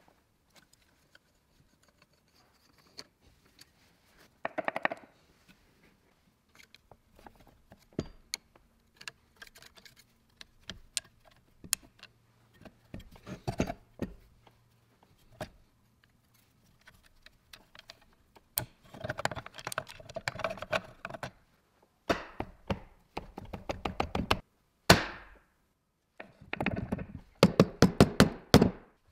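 Disassembly of an antique electric motor: scattered light metal clicks and clinks of a screwdriver working at the brush holders and end cover. In the last third come runs of quick mallet taps on the motor's metal housing, several a second, with one sharper hit among them.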